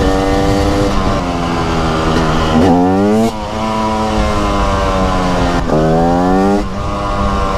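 TM SMR 300 supermoto's single-cylinder two-stroke engine under way, its note fairly steady and then twice revving up sharply and cutting back abruptly.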